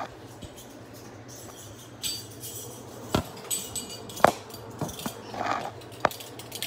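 Kitchen clatter: a few sharp separate clinks and knocks of utensils and containers against the counter and cookware, one about every second in the second half.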